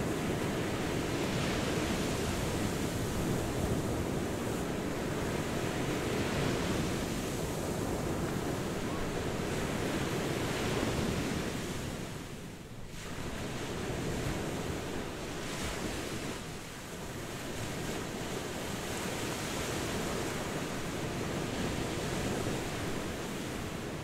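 Ocean surf: waves breaking and washing in a steady rush, with wind. The surf eases briefly about halfway through, then builds again.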